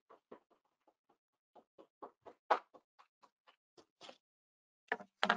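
A few people clapping by hand, sparse claps at a quick, fairly even pace in a small room.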